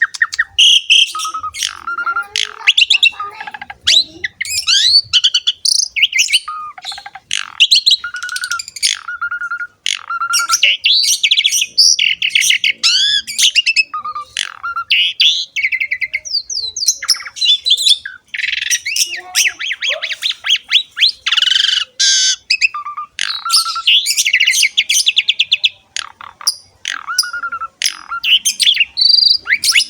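Asian pied starling (jalak suren) singing nonstop in a long, varied song. It mixes clear repeated whistles, rising and falling slurs, harsh squawks and fast chattering trills.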